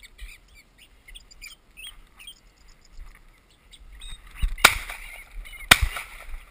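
Small birds calling in thin, short chirps, then two sharp bangs about a second apart near the end, much louder than the birds.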